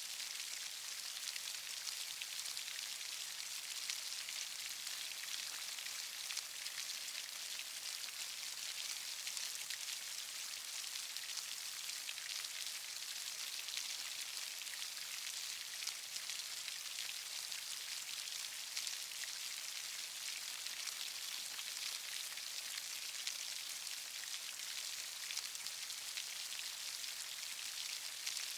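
Steady rain falling, a continuous even patter with many small distinct drop impacts.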